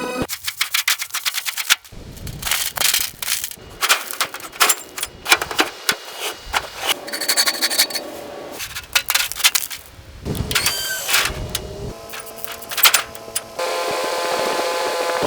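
Rapid, irregular clanking and rattling of metal tools and parts, with many sharp knocks. Near the end this gives way to a steady machine hum.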